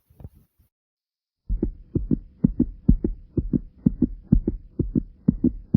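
A fast human heartbeat, pounding after jumping jacks: faint at first, then about a second and a half in it comes up loud as steady lub-dub pairs of low thumps, a little over two beats a second.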